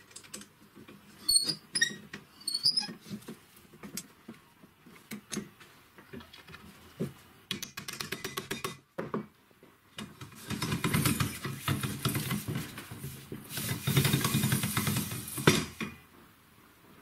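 Metal clicks and pings of a chuck key working a drill chuck, a quick run of rattling ticks, then a corded electric drill running for about five seconds, dipping briefly and running two seconds more before cutting off sharply.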